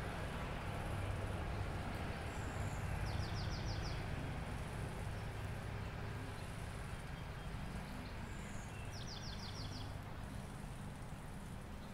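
A songbird singing the same short phrase twice, about six seconds apart: a high thin note, then a quick trill of about six notes. Under it runs a steady low rumble, like distant traffic.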